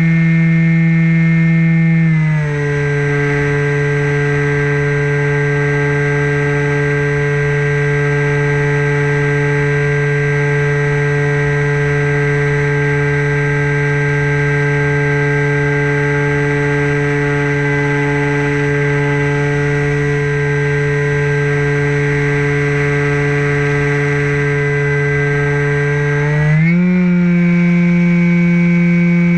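Electric motor and propeller of a Sky Surfer RC glider, a steady pitched hum in flight. The motor slows slightly about two seconds in and speeds up again near the end.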